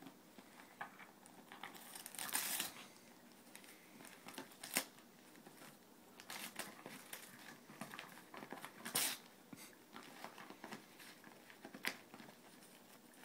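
A dog tearing and crinkling wrapping paper off a small gift box, in irregular rips and rustles, loudest about two seconds in and again about nine seconds in.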